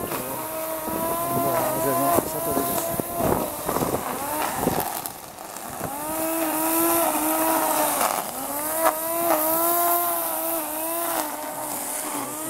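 Corded electric string trimmer running as it cuts grass, its motor whine sagging and recovering in pitch over and over, with a steady hiss above it. The whine drops away briefly about five seconds in, then comes back up to speed.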